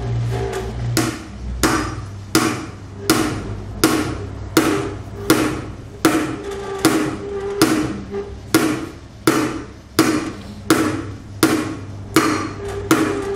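Rim-straightening machine working a bent 14-inch steel car rim: a steady motor hum under regular ringing metallic knocks, about four every three seconds, as the roller presses on the rim's bent flange.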